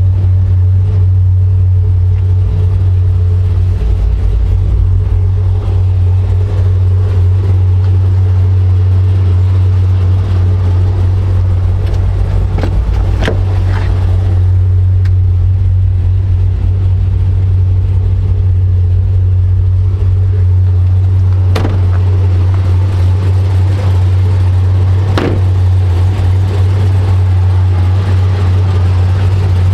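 Supercharged 6.2-litre LSA V8 of a 2010 Camaro SS idling steadily with a deep, even low rumble, with a few brief clicks or knocks.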